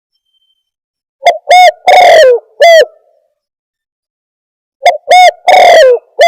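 Spotted dove (tekukur) cooing: two loud four-note phrases, each two short coos, a long coo that falls in pitch at its end, and a last short coo. The recording is clipped.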